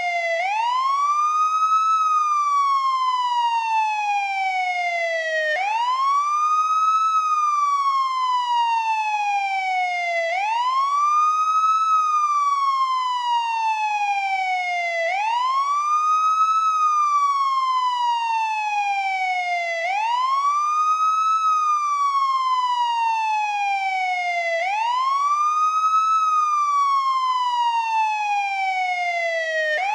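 American police car siren on its wail tone, sweeping up in pitch over about a second and a half, then sliding slowly back down. The cycle repeats about every five seconds at a steady loudness.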